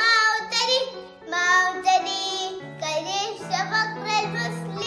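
A child singing a song in Arabic over backing music, whose held low notes come in about half a second in and change pitch partway through.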